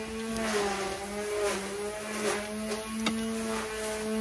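A neighbour's powered grass cutter running with a steady motor hum, its pitch wavering a little in the first two seconds and then holding steady. A single sharp click about three seconds in.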